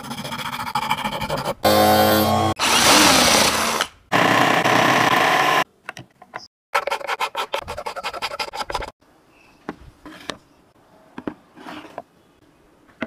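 PVC sheet being shaped: a hand file rasping in a slot, a small electric scroll saw running and cutting through the plastic with rapid, even ticking, then a few light clicks as the parts are handled.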